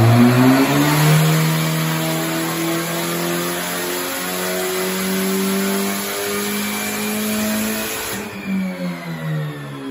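Ford Escort engine running hard under load on a chassis dyno during a pull, its note held high. About eight seconds in the throttle closes and the revs fall away.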